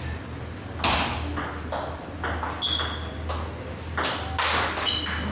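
Table tennis rally: a celluloid-type ping-pong ball clicking sharply off the bats and the table, about a dozen hits at two to three a second, with a steady low hum underneath.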